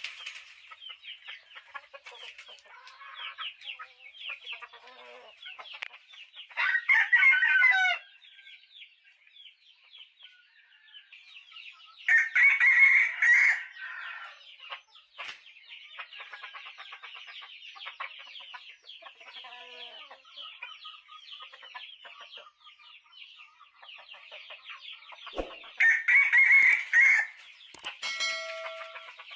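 Chickens clucking and cheeping throughout, with a loud crow three times, each lasting about a second and a half: about seven, twelve and twenty-six seconds in.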